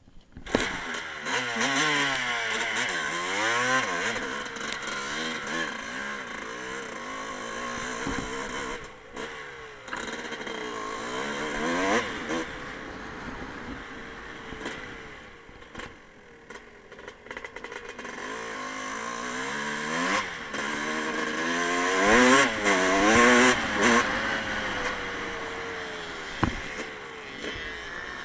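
Honda motocross bike's engine being ridden, revving up and down with the throttle, its pitch climbing and dropping again and again. It is loudest and revs highest about four-fifths of the way through.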